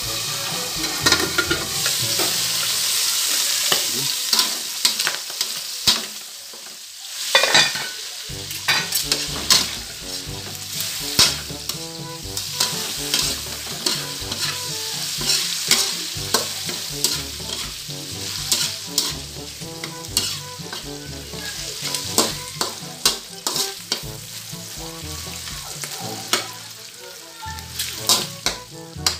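Pork pieces frying and sizzling in a metal wok while a metal spatula stirs them, browning them golden. A loud steady sizzle at first, then quieter frying broken by frequent sharp scrapes and clicks of the spatula against the pan.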